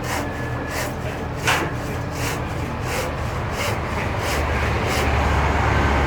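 Rhythmic scraping strokes, about one and a half a second, with an engine rumbling underneath that grows louder about four seconds in.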